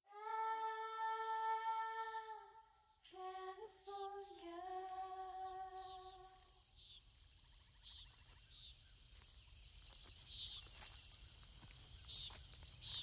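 A voice hums two long held notes, the second a little lower, on the medley's intro. It then gives way to outdoor ambience of repeated short high chirps and faint clicks over a low rumble.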